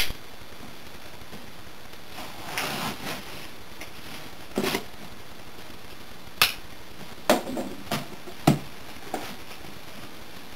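A cardboard box being opened by hand: a blade scraping along the packing tape on the seam, and a scattering of sharp taps and knocks as the box and its flaps are handled.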